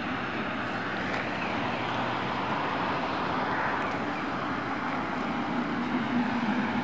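City street traffic: cars and a bus passing on a multi-lane road, a steady rush of tyre and engine noise, with a low engine hum from a passing vehicle coming up near the end.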